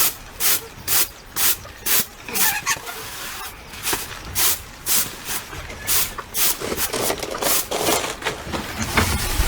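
Rhythmic scraping or swishing strokes, about two a second, with a slightly irregular rhythm in the second half.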